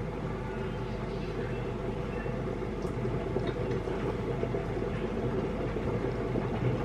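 A steady low hum and rumble, with a few faint small clicks partway through.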